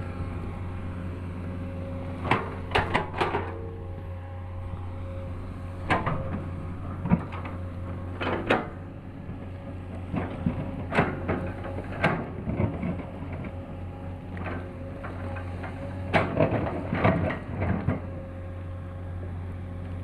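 Excavator engine running steadily, with a series of sharp clanks and knocks in clusters from the bucket and arm working, a few seconds apart.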